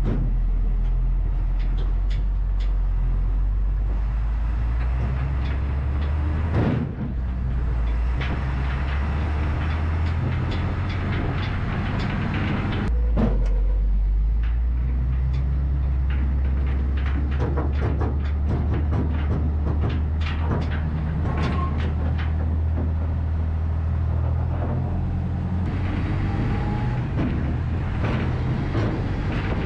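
Truck towing a loaded equipment trailer down the road: a steady low engine and road drone, with the trailer and the chained skid steer on it rattling and clanking over bumps.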